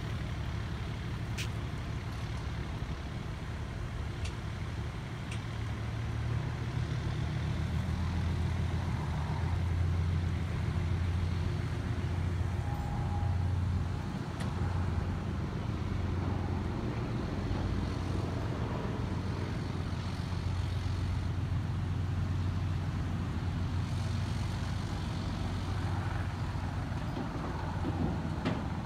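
A vehicle engine idling: a steady low hum, with a few faint ticks.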